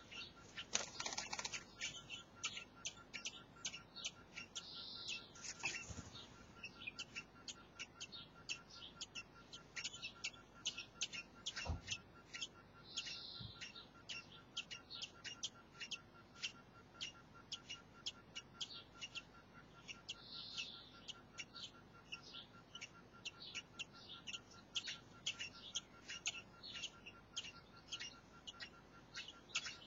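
Blackbird nestlings chirping in the nest: faint, rapid, thin high chirps, several a second.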